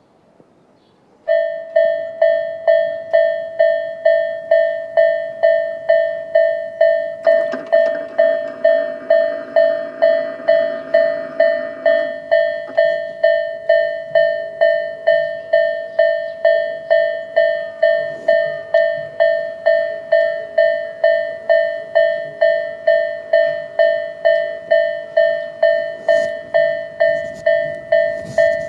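A bell rung over and over at an even pace of about two strokes a second, each stroke one clear pitch that fades before the next, starting about a second in. For about five seconds in the first half, a lower, steady tone sounds alongside it.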